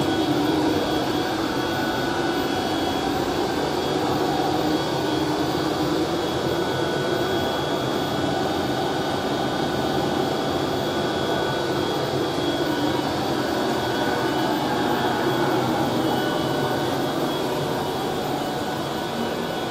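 Steady din of a running HDPE blown-film extrusion line, centred on a Kung Hsing extruder over 40 years old: motor and gearbox running, with a couple of thin steady whines above the rumble.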